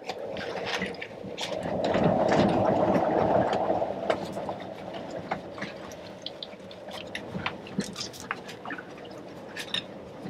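A rush of running liquid swells and fades over about two seconds, followed by many small clicks and taps of hands and tools working the fuel filter housing on a Westerbeke marine diesel.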